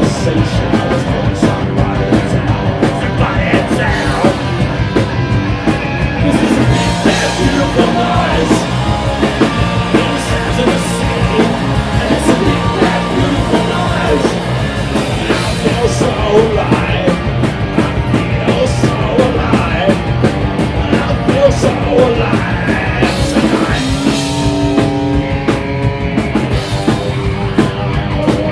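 Live rock band playing loudly: distorted electric guitars, bass and a drum kit in a fast, driving punk-rock groove.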